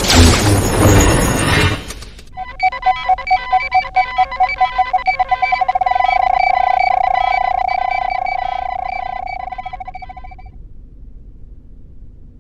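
A loud, dense burst of sound cuts off about two seconds in. Then comes a run of electronic beeps on one pitch that speed up until they merge into one steady tone, which fades away and stops near the end.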